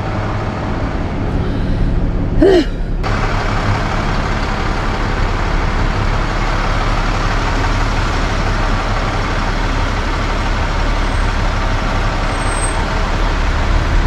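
Rollback tow truck driving slowly with a car loaded on its bed, its engine running steadily under the road and rolling noise.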